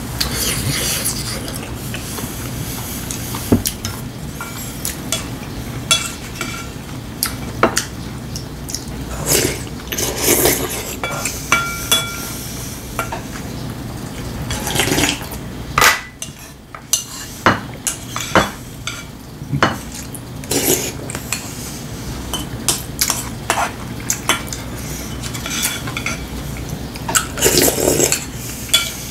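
Chopsticks and a spoon clicking and scraping against ceramic bowls and plates in many separate clinks, with a few short slurps of soup.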